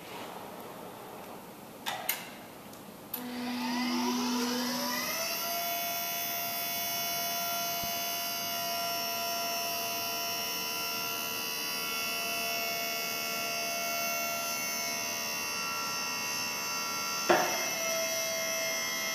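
Lift-A-Loft Vertex 15 vertical mast lift's electric motor raising the platform. Two clicks about two seconds in, then the motor starts with a whine that rises in pitch for about two seconds and settles into a steady high whine. A sharp click and a brief dip come near the end before the whine carries on.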